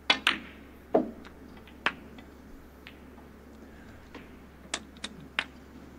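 Snooker balls clicking as the cue tip strikes the cue ball and the balls collide. A cluster of sharp clicks comes in the first two seconds, one of them a duller knock about a second in, and three more come near the end.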